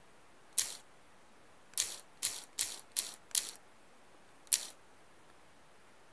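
Samsung Galaxy phone's keyboard key-press sounds as a Gmail address is typed in: seven short clicks at an uneven pace, five of them in quick succession around the middle.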